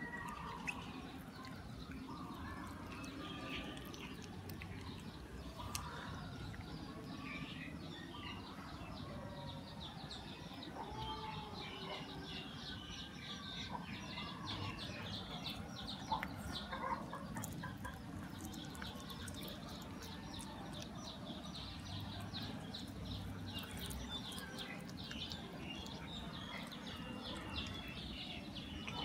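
A cat chewing and tearing cooked chicken off a bone, a dense run of small crunching clicks that is busiest in the second half. Chickens cluck and small birds chirp in the background.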